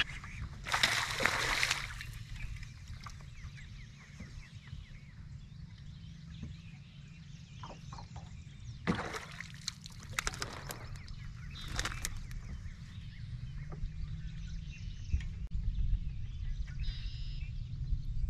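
Water splashing and sloshing in a few short bursts, over a steady low rumble.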